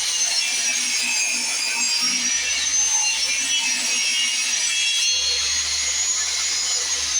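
Power saw cutting through a wooden board, its high motor whine sagging in pitch under load and rising again.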